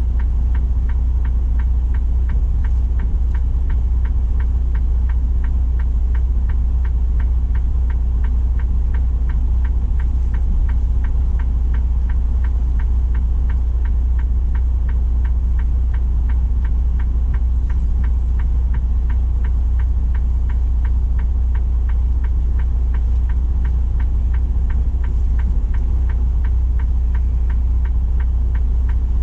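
Semi truck's diesel engine idling steadily, heard inside the cab as a constant low hum, with a fast, regular ticking over it.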